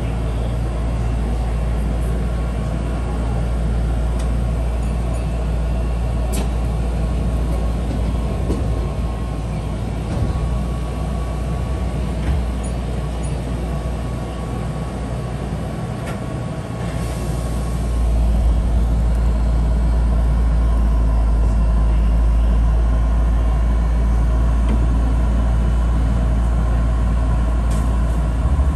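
Keihan 1000 series electric train running slowly through station points, heard from inside the driver's cab: a steady low rumble with a faint steady tone and a few sharp clicks from the wheels and cab, growing louder about two-thirds of the way through.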